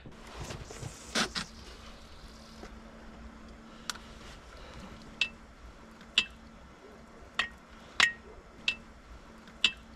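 A soft knock about a second in, then a string of light, sharp clinks, seven in all at uneven intervals, each with a short ringing note, over a faint steady hum.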